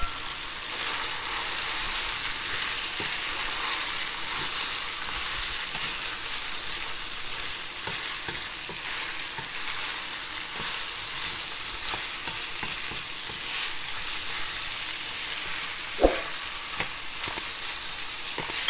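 Diced chicken and chopped green onions sizzling in a hot pan as they are stirred with a spatula, a steady frying hiss with scattered light scrapes and taps of the spatula on the pan. One sharper knock of the spatula comes near the end.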